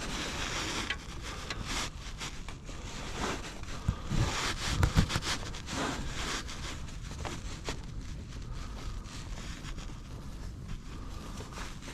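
Diesel fuel draining from the Duramax fuel filter housing's drain screw into a drain pan, with a few low thumps about four to five seconds in.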